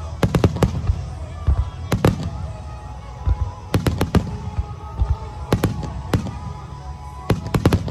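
Aerial fireworks bursting: sharp bangs in quick clusters of two to four, a volley every second or two. Music plays underneath throughout.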